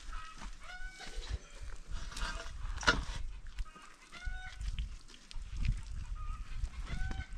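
Domestic poultry calling, short rising calls that come in three clusters, about a second in, about four seconds in and near the end. A sharp knock sounds about three seconds in.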